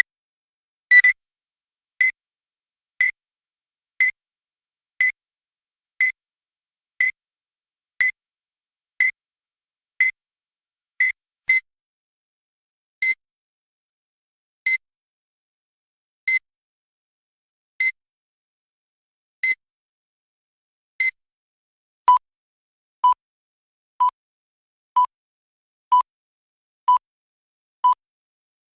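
Electronic cycle-complete beeps of a CNC machine, in short repeated tones. High beeps come about once a second, then slow to about one every second and a half. In the last several seconds they change to lower-pitched beeps, once a second.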